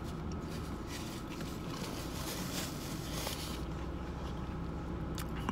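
A person chewing a mouthful of burger, with a crackly, noisy stretch from about one second in to past the middle, over a steady low hum.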